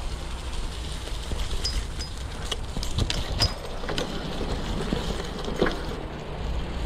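Bicycle riding over a dirt trail: a steady low rumble of tyres on the ground, with a run of sharp rattles and clicks from the bike over bumps, loudest around the middle.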